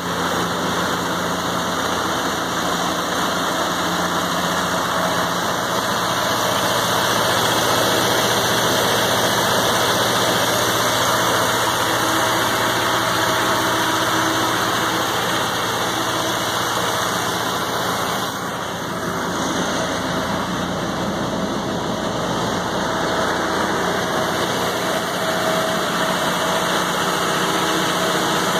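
John Deere 4045 four-cylinder diesel engine of a Chicago Pneumatic CPG 120 95 kW generator set running steadily, heard with the enclosure doors open.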